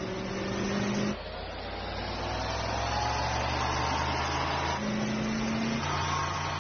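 Animated sound effect of limousine engines running at speed as two limos charge at each other, the engine pitch climbing steadily over a few seconds as they accelerate.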